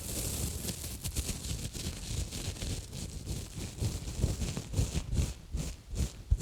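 Textured exfoliating gloves rubbed and scratched close around a microphone: a continuous scratchy rustle with a low rumble, turning into quick rhythmic scratching strokes, about three or four a second, near the end.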